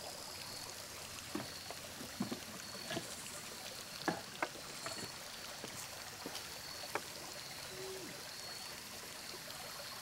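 Shallow creek water running over flat rock ledges, a steady rush, with scattered knocks and clicks about every second or so.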